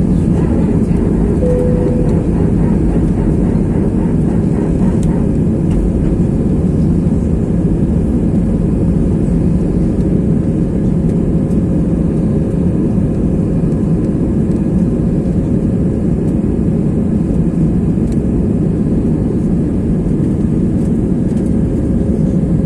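Airliner engines running at takeoff power, heard from inside the passenger cabin as a loud, steady low rush. A faint steady hum joins about a second and a half in.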